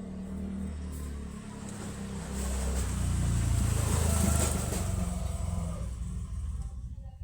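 A motor vehicle passing by, growing louder to a peak a little past halfway and then fading, with a low engine rumble under a rising and falling hiss of motor and tyres.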